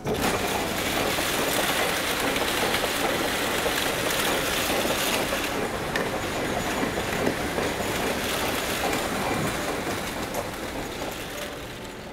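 Garabō cotton-spinning machine running: a dense, rapid rattling clatter from its rows of spinning cotton-filled cylinders, the 'gara-gara' sound that gives the machine its name. It starts suddenly and fades near the end as the machine stops.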